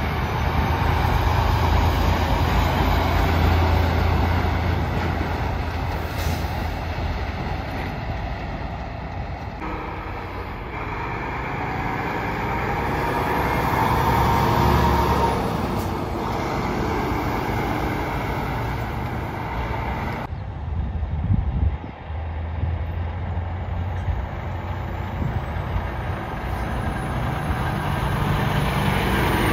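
Diesel semi-trucks pulling out and driving past one after another: a Freightliner Cascadia, then a Volvo VNL, then a Peterbilt. The engine drone and tyre noise swell and fade as each truck passes, and the sound changes abruptly twice.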